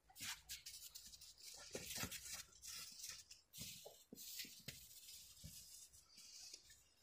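Two dogs scrambling after a balloon in snow: faint, irregular crunching and scuffling of paws in the snow with a few soft thumps.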